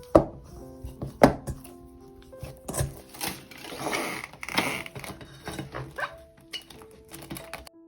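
Background music with kitchen preparation sounds over it: three sharp knocks in the first three seconds, then a few seconds of scraping noise in the middle. The music cuts off near the end.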